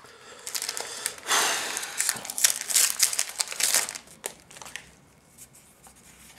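Trading card booster pack wrapper crinkling and crackling as it is handled and torn open, loudest from about half a second to four seconds in, then fading to faint rustles.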